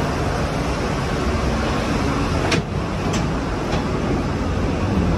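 Rolling suitcase wheels rumbling steadily along a metal gangway floor, with a few light clicks partway through.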